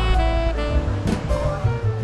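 Background music: a jazzy track with saxophone-like melody over a bass line and drums.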